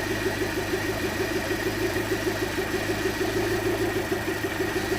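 Land Rover Freelander's 1.8 petrol four-cylinder engine idling with a steady, regular pulse. It is idling with a misfire, which the technician believes is down to the spark plugs.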